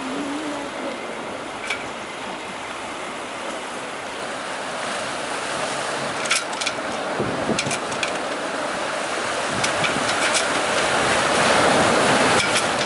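Sea surf washing and breaking against shoreline rocks around a grounded yacht, swelling louder near the end, with a few sharp clicks scattered through.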